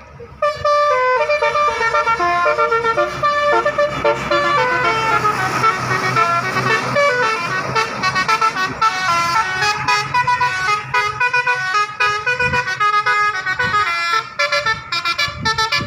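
Bus telolet horn, a set of air-horn trumpets mounted high at the back of a bus, playing a fast tune of short notes that step up and down. It starts loudly about half a second in and keeps going.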